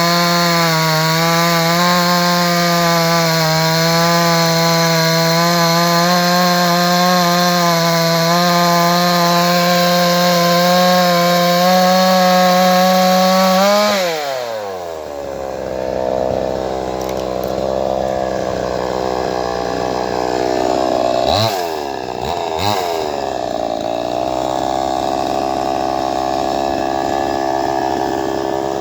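Two-stroke chainsaw running at full throttle with a steady high engine note, then the throttle is released about halfway through and the engine falls to idle. Two quick throttle blips come a little later before it settles back to idling.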